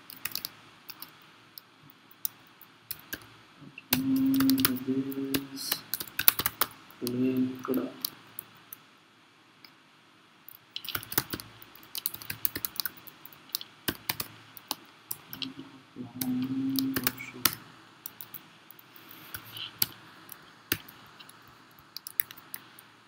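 Typing on a computer keyboard: irregular bursts of key clicks with short pauses between them.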